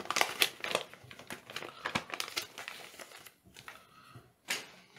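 Paper and plastic packaging crinkling as a folded paper checklist and LEGO Minifigures blind bags are handled: dense crackles at first, thinning out, with one sharper crackle near the end.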